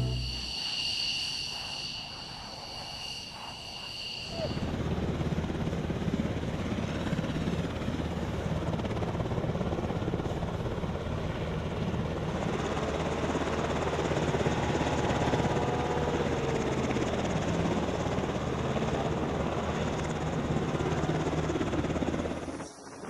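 Helicopter rotor and turbine engine running steadily. It comes in louder about four seconds in and cuts off suddenly near the end.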